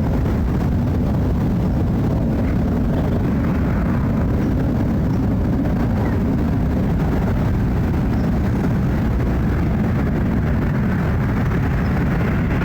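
Jet airliner passing overhead after takeoff: a steady, deep engine roar with no rise or fall.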